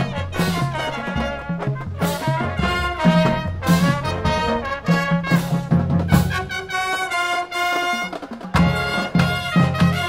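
High school marching band playing: trumpets, saxophones and other brass and woodwinds over low brass and a drumline keeping a steady beat of drum hits. The bass drops back briefly late in the phrase before the full band comes back in.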